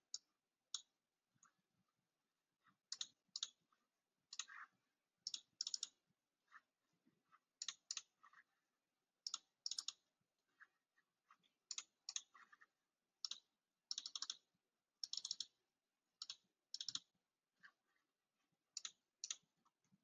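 Faint keystrokes on a computer keyboard, typed in short irregular bursts of a few clicks with pauses between them.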